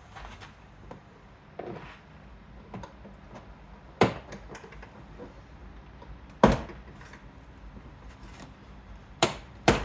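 Sharp plastic clicks and knocks, four loud ones spaced a few seconds apart with fainter ticks between, from hands and tools working on a vehicle's interior door panel.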